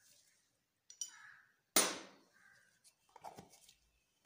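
Kitchenware being handled on a tabletop: one sharp knock a little under two seconds in, a lighter tap before it, and a few soft clicks near the end.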